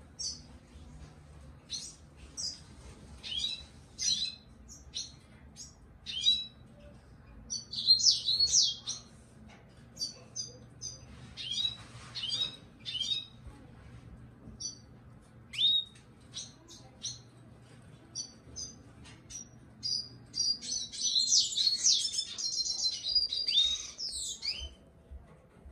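Yellow-fronted canary giving short, scattered chirps and call notes, breaking into a quicker, denser burst of song about twenty seconds in.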